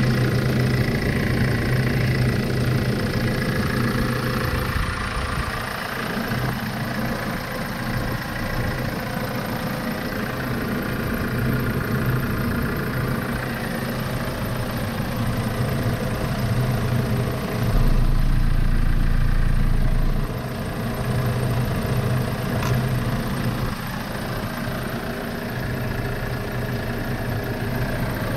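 2007 Hyundai Porter double cab's 2.5-litre diesel engine idling steadily, heard close up at the open engine bay. A louder low rumble comes in for a couple of seconds about two-thirds of the way through.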